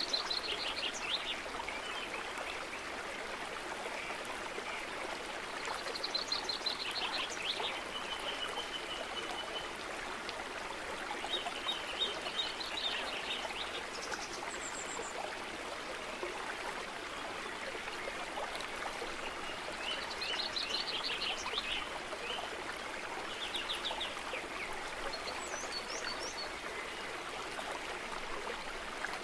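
Steady trickle and rush of a running stream, with chirping trills and a few short whistles coming every few seconds above it.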